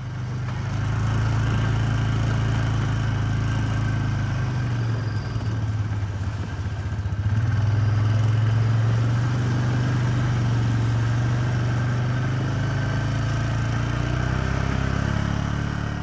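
Polaris ATV engine running steadily as the quad drives along a dirt track. The engine note eases off briefly about halfway through, then picks up again.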